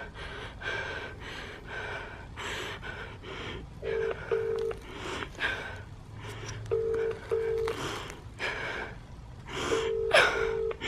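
British telephone ringback tone through a mobile phone: three double rings about three seconds apart as an emergency call rings before it is answered. Between and over the rings, a woman breathes hard and cries.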